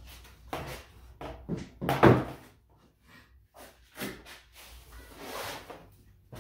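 A fold-down wooden wall table is lowered onto its legs: a string of wooden knocks and thumps, the loudest about two seconds in. Near the end come softer shuffling sounds as padded speaker bags are handled and set on it.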